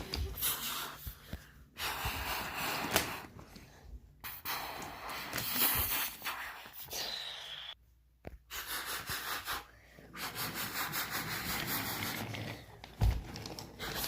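Mouth-made train sound effects: breathy hissing and puffing noises in bursts, broken by short pauses.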